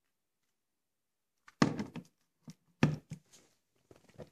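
About a second and a half in, two solid knocks come about a second apart, followed by a few lighter knocks near the end: objects being handled and set down.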